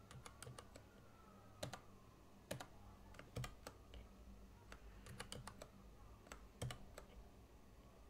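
Faint computer keyboard keystrokes in small scattered clusters of clicks, from Escape and Control-key combinations pressed to quit the Emacs minibuffer.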